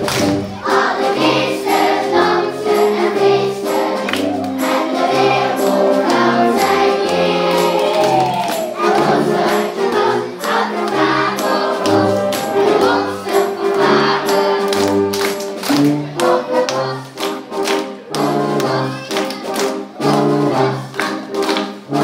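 Children's choir singing with a youth fanfare band playing along on wind instruments, keyboards and percussion, to a steady beat.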